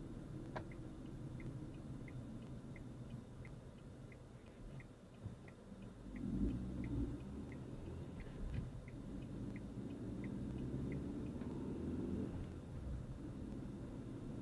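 Car turn-signal indicator ticking evenly, about three ticks every two seconds, over the low rumble of engine and road noise inside the cabin. The ticking stops about eleven seconds in as the car comes out of the turn.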